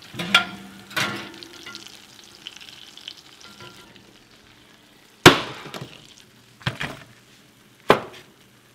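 Hot baking dishes being handled at an open oven: a series of sharp clinks and knocks from glass and ceramic dishes against the wire oven rack and stovetop, the loudest about five seconds in, over a light sizzling from the hot baked fish during the first few seconds.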